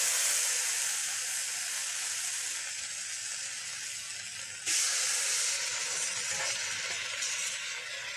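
Thick bacon slices sizzling in a hot cast-iron skillet: a loud sizzle that slowly eases off, then jumps up sharply about halfway through as a second slice goes into the pan.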